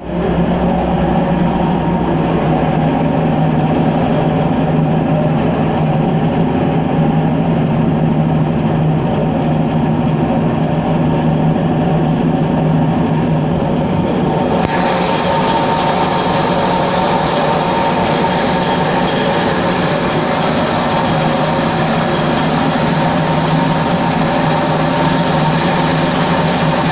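Belt-driven air compressor and its electric motor running steadily and smoothly, the drive belt tight. About halfway through, a brighter high noise joins in and stays.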